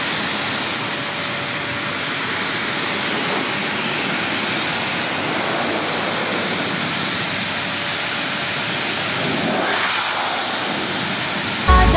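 Hose-fed pet grooming blower running steadily, its air rushing as it dries a dog's thick fur, with a faint steady whine.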